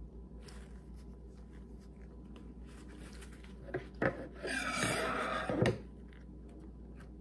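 A couple of sharp clicks, then about a second of paper napkin rustling and crumpling as hands are wiped, ending with a small tick.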